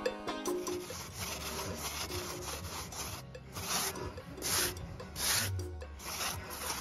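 Plastering float rubbing over wet cement render, a gritty rasping that turns into repeated strokes about once a second.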